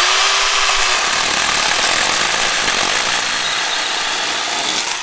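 Milwaukee M12 Fuel Hatchet battery-powered mini chainsaw with a 6-inch bar running steadily at full speed as it cuts through a dead cedar limb, then stopping near the end.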